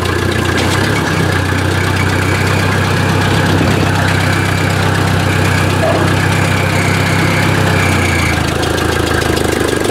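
Ford 800 tractor's four-cylinder engine pulling steadily under load as the tractor moves off from a stop in fifth gear, on a cold engine. The engine note eases off a little near the end.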